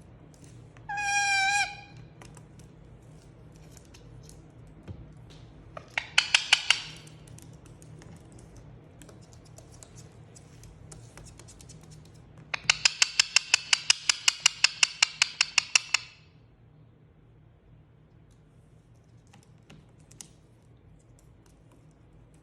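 Indian ringneck parrot calling: a short wavering pitched call about a second in, a brief burst of rapid pulses a few seconds later, then a longer run of rapid pulsed calls at about seven a second for some three seconds, with faint scattered clicks between.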